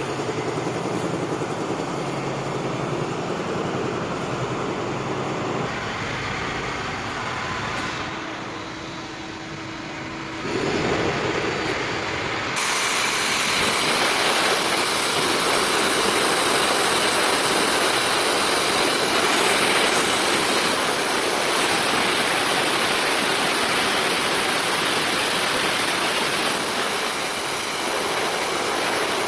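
Industrial circular saw machine for metal pipe running steadily. About twelve seconds in, a loud, even hiss suddenly sets in over the machine noise and continues.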